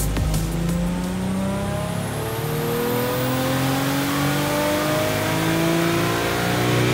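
Nissan RB26 straight-six in a Datsun 240Z making a full-throttle pull on a chassis dyno, its revs climbing steadily and unbroken under load, with a faint high whistle rising along with it.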